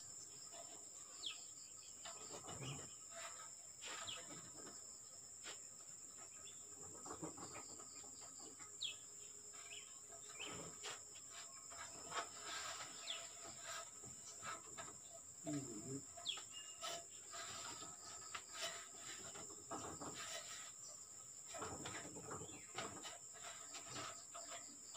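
Faint outdoor ambience: a steady high insect drone, with scattered short bird chirps and a few chicken clucks. Occasional light knocks come from a man's steps on a wooden plank and an aluminium ladder.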